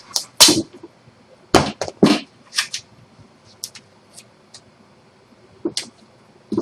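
Masking tape being pulled off the roll and torn in several short rips, most of them in the first few seconds, with light taps and clicks between and one more rip near the end.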